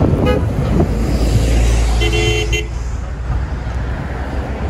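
Heavy road traffic passing close by, with a bus and cars driving past and a steady low engine rumble. A car horn toots once, for about half a second, about two seconds in.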